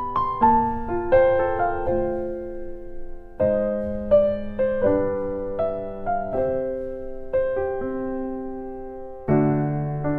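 Background piano music: a gentle, slow melody of held notes and chords.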